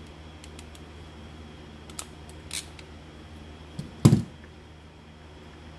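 Hand crimping tool squeezing a spade connector onto a wire, giving a few short sharp clicks, then a louder thump a little after four seconds.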